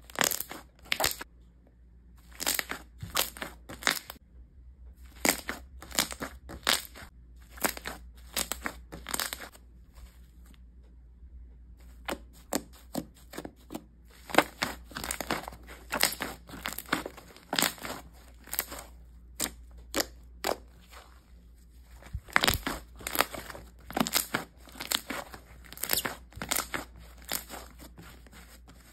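Slime being pressed and squeezed by hand, giving runs of short crunchy crackles and pops in quick clusters, with brief pauses between handfuls.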